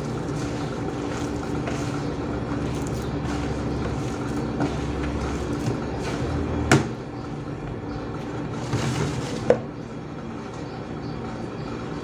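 Hand mixing and squeezing sticky sweet yeast dough in a plastic tub, making soft repeated squishing and rubbing strokes over a steady low hum. There are two sharp knocks, one about seven seconds in and one near ten seconds.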